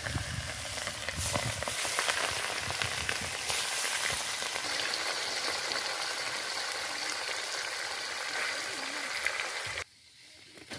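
Pieces of hilsa fish, rubbed with salt and turmeric, sizzling and crackling in hot oil in a karahi as they are dropped in and stirred with a spatula. The sizzle grows louder about a second in, holds steady, and cuts off suddenly near the end.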